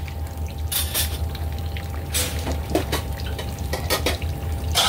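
Metal utensils and pots clinking and clattering, about eight short knocks spread over a few seconds, over a steady low hum.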